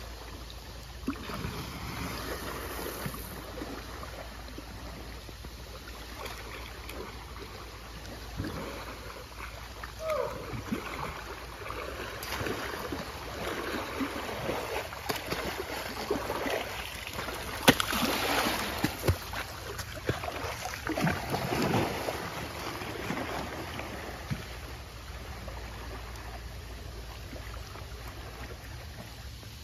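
Water splashing and sloshing as an adult and a calf Asian elephant wade and roll in a muddy pond, in irregular surges that are loudest in the middle stretch. There is one sharp knock a little past halfway.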